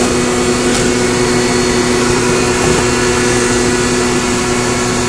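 Steady drone of running shop machinery: an even electrical-motor hum with several fixed tones over a constant hiss, unchanging throughout.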